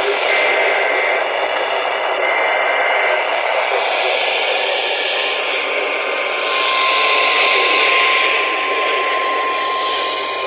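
Radio receiver static, a loud steady hiss. About five seconds in, a steady single-pitch tone starts and holds: a weather radio's warning alarm tone coming on under the static.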